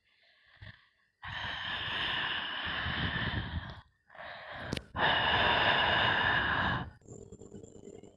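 Two long, breathy hisses like heavy exhalations, each lasting about two to three seconds and cutting off abruptly, with a short gap between them.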